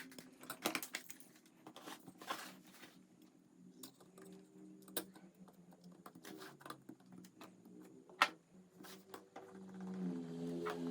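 Irregular sharp clicks and taps of small parts being handled during repair work, with faint steady low tones underneath.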